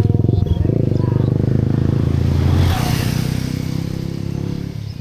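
A small motor vehicle's engine passing close by: a pulsing, low engine note that is loudest about two and a half seconds in, then fades away as it moves off.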